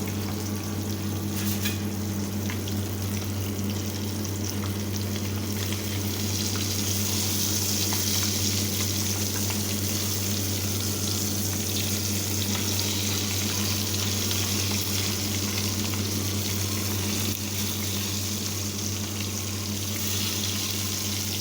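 Fish pieces sizzling in hot oil in a frying pan, just turned over to fry the second side. The sizzle is steady and grows louder about six seconds in, with a few light taps about two seconds in.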